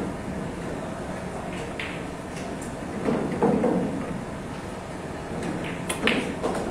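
Pool balls knocking on a pool table: a few sharp clacks of cue and balls, with a louder cluster about three seconds in and another near the end, over steady background noise.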